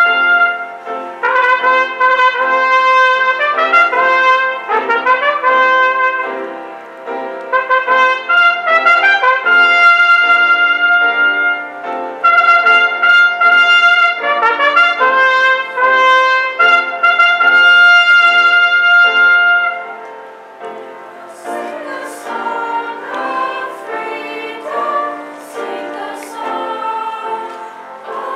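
A trumpet playing a slow melody of held notes, stopping about twenty seconds in. A choir then begins singing, more quietly.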